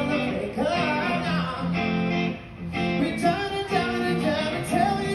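Live band performing: a singer at a microphone with electric guitar accompaniment, the sung melody holding and bending notes over the guitar.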